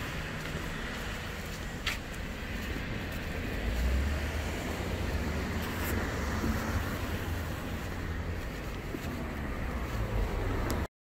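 Road traffic noise: a steady low rumble of passing cars, with a short sharp tick about two seconds in, cutting off abruptly near the end.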